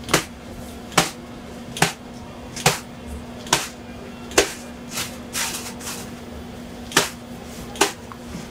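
Sharp knocks repeating at an even pace, a little faster than one a second, with a couple of weaker ones about two thirds of the way through, over a steady low hum: the working noise of a doughnut stall's fryer and counter.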